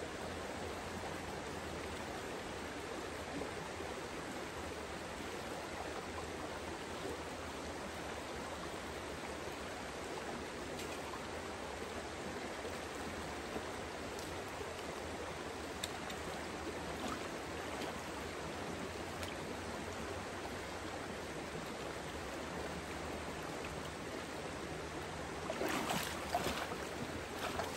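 Shallow rocky stream flowing steadily around a wading angler. Near the end, splashing as a brown trout is scooped into a landing net.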